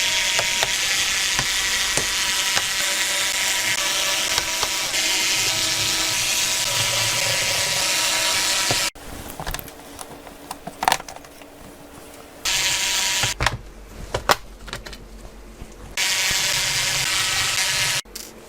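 A small motor whirring loudly and evenly for about nine seconds, stopping abruptly, then running again briefly twice, about a second and then about two seconds, with clicks and knocks in between.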